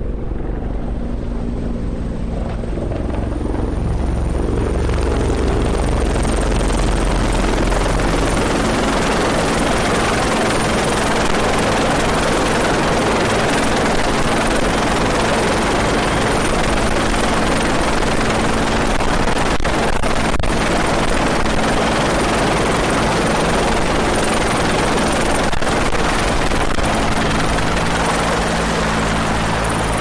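CH-146 Griffon helicopter hovering close overhead: steady rotor and turbine noise under a loud rushing rotor wash that swells about four seconds in and then holds.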